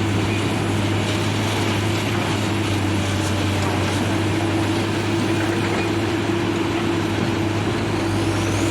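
Heavy-equipment diesel engine running steadily at a constant speed, with a faint high whine rising near the end.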